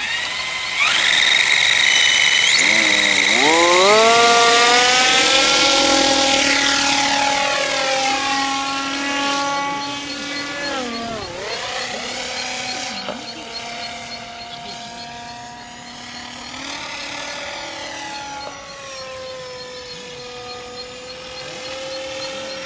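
Radio-controlled Magnus-effect model aircraft running its motors, propellers and spinning rotor cylinders. A high whine spins up at once, then a buzzing tone climbs in pitch a few seconds in as the model takes off. The pitch swoops down and back up twice around the middle as it passes, and the sound grows fainter as it flies away.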